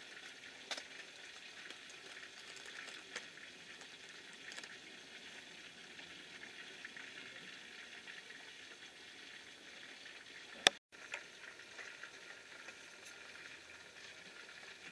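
Faint steady hiss of cooking on a lit gas stove, with scattered light clicks and one sharp click about ten and a half seconds in.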